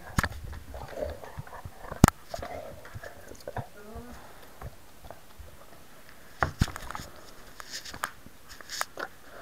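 Irregular clicks, knocks and scratchy rustles from a camera hanging on a cat's collar as the cat moves, with one sharp knock about two seconds in and a quick run of clicks in the second half.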